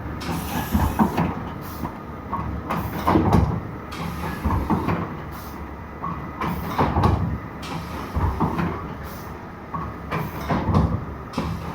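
Three-side book trimming machine running through its cutting cycles: a steady machine noise with a loud mechanical clunk repeating roughly every three and a half seconds, each cycle with short bursts of higher noise.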